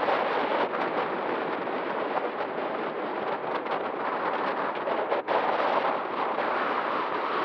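Wind rushing over the microphone, a steady noise with a brief drop a little after five seconds.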